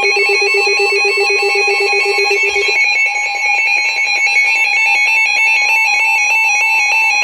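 Emergency alert attention signal, the electronic tone that announces a severe thunderstorm warning. It is loud, with several steady tones under a fast warbling pattern higher up, and a lower buzzing tone drops out about three seconds in.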